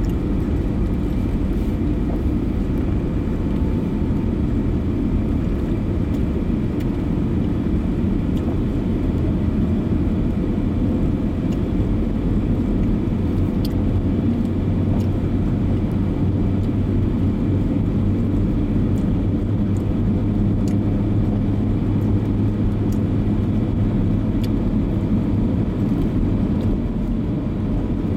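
Steady engine and tyre noise from inside a car cruising on an asphalt road, with a low even hum underneath.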